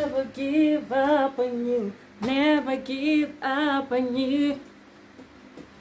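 A woman singing a few held, wavering notes unaccompanied for about four and a half seconds, then stopping.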